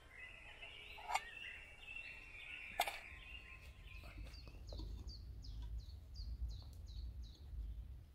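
Birds singing in woodland: one sings a wavering phrase in the first few seconds, broken by two sharp clicks, then another repeats a short high falling note about three times a second. A low rumble runs underneath.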